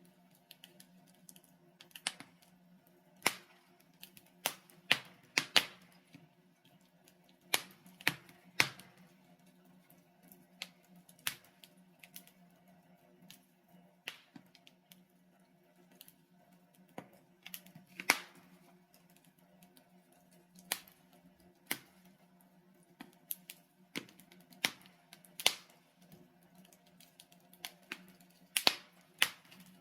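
Wood fire burning in a fireplace: irregular sharp crackles and pops from the burning logs, a few louder snaps among them, over a faint steady low hum.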